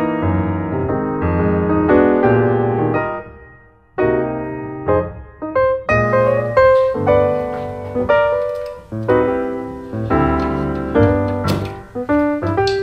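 Background piano music: notes struck and left to ring, with a brief pause about a third of the way in before the playing picks up again.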